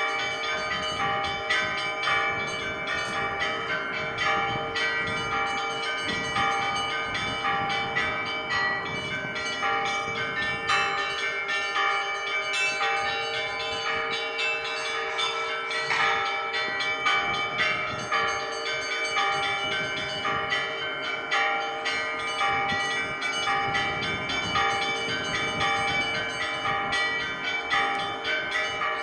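Church bells ringing: several bells struck in quick succession in a dense, continuous peal over a lower bell that keeps ringing.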